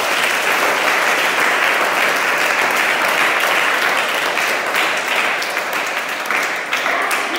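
A group of people applauding: steady, dense clapping that eases off slightly near the end.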